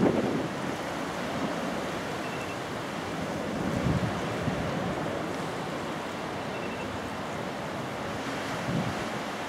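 Wind buffeting the microphone in gusts, at the start, about four seconds in and near the end, over a steady rushing roar: the distant four-engine Boeing 747-400 on final approach with its landing gear down.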